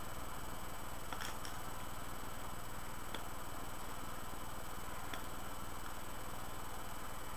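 Steady hiss and hum of a low-quality microphone, with faint soft clicks about every two seconds and a short cluster of them about a second in.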